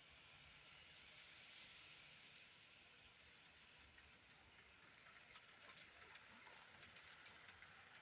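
Faint running of model train locomotives on the track: a quiet steady whir with scattered small clicks as the wheels pass over the rails.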